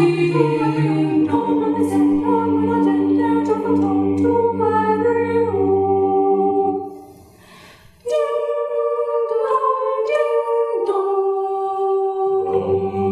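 A choir singing a cappella, in long held chords without instruments. The sound breaks off briefly about seven seconds in, and the voices come back in on sustained notes.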